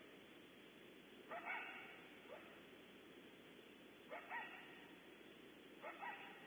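Coyote barking: faint short barks and yips, some in pairs, coming every second or two over a steady hiss.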